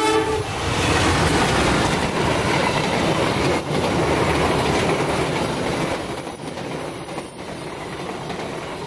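A passenger train hauled by a diesel locomotive passing close at speed. The last of a horn blast cuts off right at the start, then comes a loud rush of locomotive and coaches, with the wheels knocking over rail joints. The rush eases off after about six seconds as the coaches run past.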